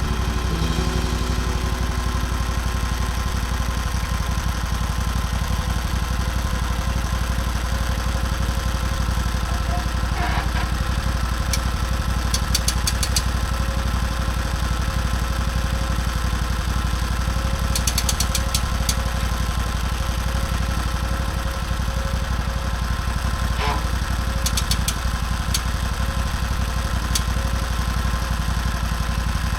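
An engine running steadily at a constant speed, with a few short clusters of faint high clicks over it.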